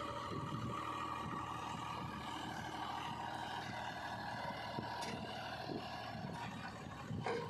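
Diesel engine of heavy machinery running steadily, with a few knocks near the end.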